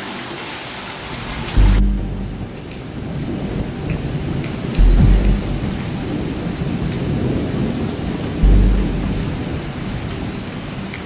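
Steady rain with deep booms of thunder, three of them about three and a half seconds apart. The high part of the rain hiss drops off abruptly about two seconds in.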